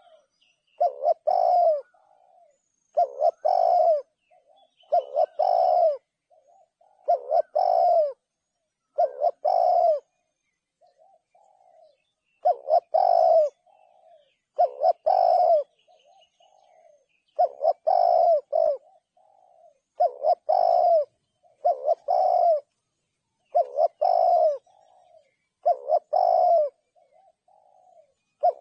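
Spotted dove cooing: the same loud, clear phrase, a short note then a longer coo, repeated about every two seconds, with a short break near the middle. Fainter short coos fall between the phrases.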